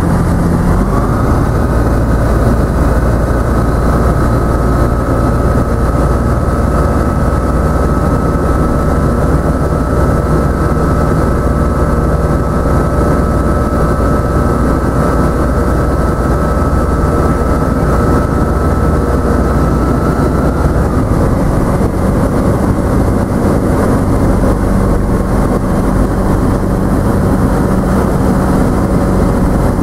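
Light aircraft's engine and propeller droning steadily, heard from inside the cabin. The engine note steps up slightly in pitch about a second in and drops back a little about two-thirds of the way through, as engine speed changes.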